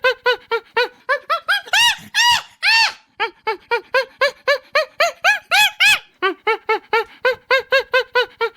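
Chimpanzee calling: a rapid run of short hoots, each rising and falling in pitch, about five a second, that twice builds into louder, higher screams, about two seconds in and again after about five seconds.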